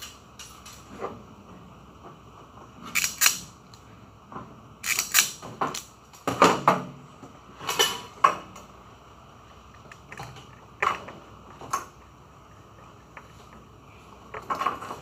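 Hands working wires into an electrical control panel: irregular light clicks and rustles of wire and plastic parts, busiest in the middle and picking up again near the end.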